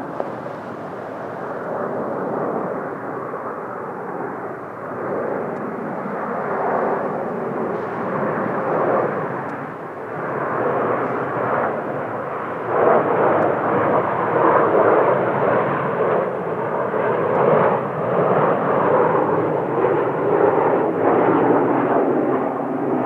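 Jet noise from Blue Impulse Kawasaki T-4 jets flying overhead, a continuous rushing roar that grows louder about halfway through and stays loud.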